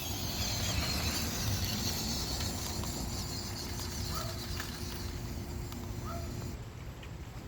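Steady outdoor background hiss with a steady low hum and a few faint short chirps; the hum and the higher hiss cut off about a second before the end.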